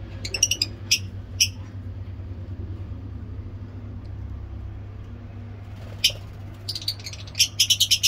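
Caged lovebirds chirping: a few sharp, high chirps in the first second and a half, another at about six seconds, then a quick run of chirps near the end.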